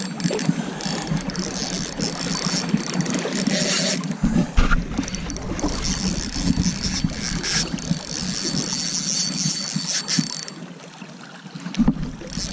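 Fishing reel's mechanism clicking rapidly and unevenly while a hooked king salmon is fought on the line.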